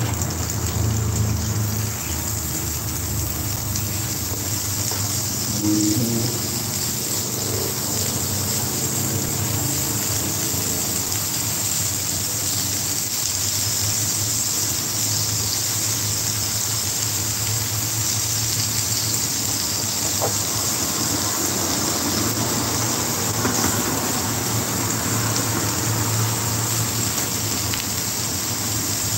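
Steady sizzling of pancake batter and sliced sausage cooking on a hot electric griddle, with a low hum underneath.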